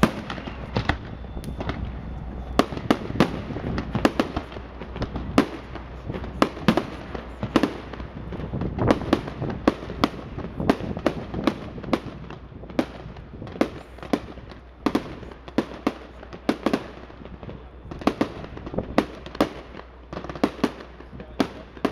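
Fireworks display: aerial shells bursting in a rapid, irregular string of sharp bangs, several a second.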